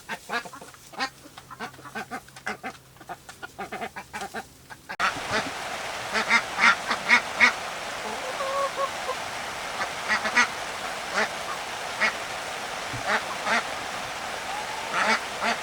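Domestic fowl calling: quick short clucks, then about five seconds in an abrupt jump to a steady hiss with louder calls in quick runs of three or four.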